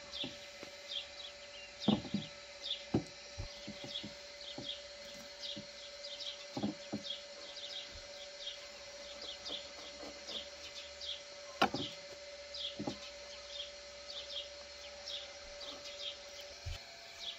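A knife cutting through a crusty baked kraffin and knocking a few times on a wooden board, with sharp knocks about two seconds in and again just under twelve seconds in. Small birds chirp steadily throughout.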